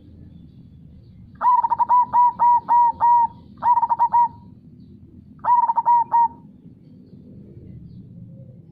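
Zebra dove (perkutut) cooing in three phrases of quick staccato coos. The first phrase is the longest, about seven notes, and the other two are short, a few notes each.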